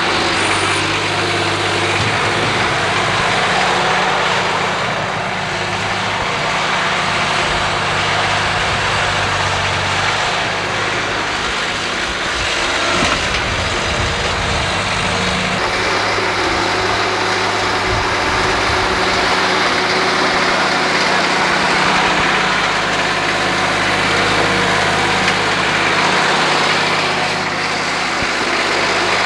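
An engine running steadily under a loud, even hiss. Its low hum shifts pitch about halfway through.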